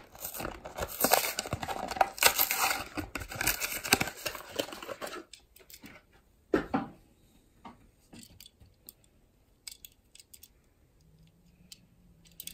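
Hot Wheels blister pack being torn open by hand: the plastic blister and card crackle and rip for about five seconds, then a louder click and a few faint clicks as the die-cast car is freed.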